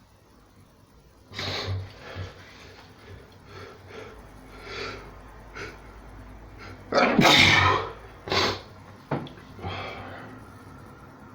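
A person sneezing over and over in a fit, the sneezes varying in strength; the loudest comes about seven seconds in, with another strong one right after.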